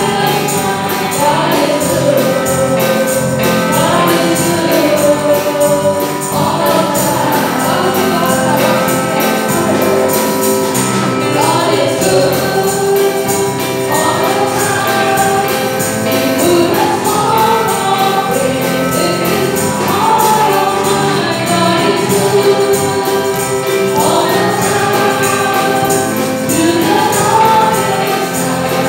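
Two women singing a gospel praise song through a PA system, with live band accompaniment keeping a steady beat.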